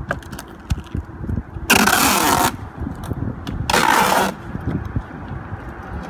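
Clear packing tape ripped off the roll twice in long rasping pulls, about two seconds in and again near four seconds, with small taps and clicks of hands pressing it down between.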